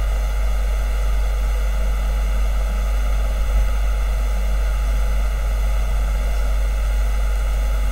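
Steady low hum with an even hiss over it, unchanging throughout: the background noise of the recording setup, with nobody speaking.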